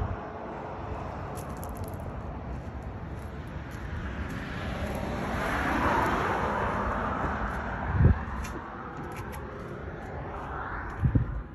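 Road traffic going by, one vehicle swelling and fading around the middle. Two short low bumps of wind or handling on the microphone come in the second half.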